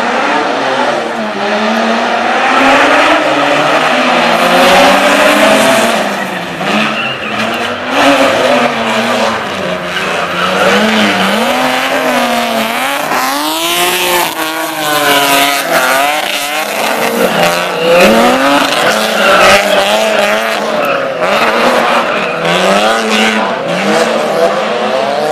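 Two drift cars, a dark green BMW E36 sedan and a blue car, sliding in tandem. Their engines rev hard, the pitch climbing and falling again and again as the drivers work the throttle, over a steady tyre squeal from the slides.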